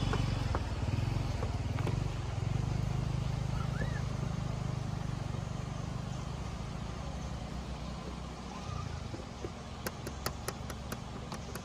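Low drone of a motor vehicle's engine, slowly fading as it moves away, with a run of light clicks near the end.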